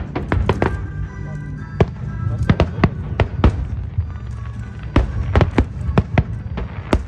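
Aerial fireworks bursting in rapid, irregular succession: sharp bangs, many a second apart or less, over a continuous low rumble.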